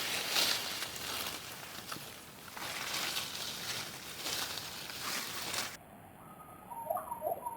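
A rustling noise swells and fades several times, then cuts off suddenly. Near the end, short chirping bird calls start.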